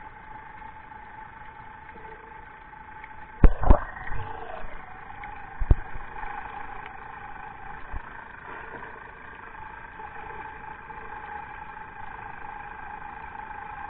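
A boat engine's steady drone heard underwater. Sharp knocks come about three and a half seconds in, with another near six seconds.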